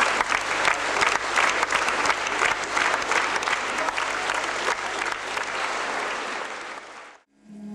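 Theatre audience applauding: dense, steady clapping that fades out near the end.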